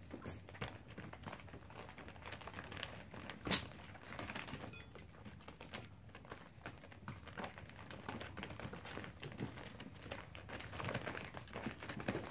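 Puppy eating dry kibble from a stainless steel bowl: rapid, irregular crunching and pieces of kibble clicking and rattling against the metal as its paws shift in the bowl, with one sharp louder click about three and a half seconds in.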